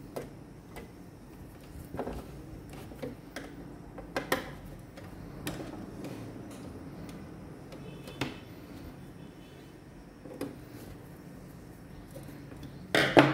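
Light, scattered clicks and knocks of a screwdriver and hands on the plastic case of an APC Back-UPS 700 as its case screws are driven back in, a second or two apart, with a louder clatter of knocks near the end.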